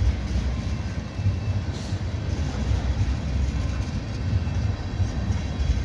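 Freight train tank cars rolling past at a grade crossing: a steady, loud low rumble of steel wheels on the rails.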